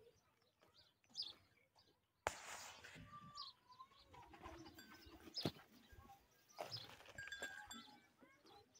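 Faint livestock-yard sounds: small birds chirping, a short bleating animal call about halfway through, and a few sharp knocks.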